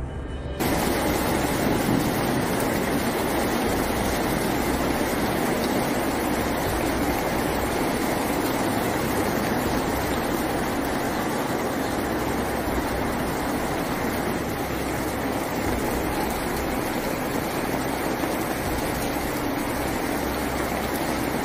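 Steady loud rushing of water, starting abruptly about half a second in as music cuts off, and running on without a break.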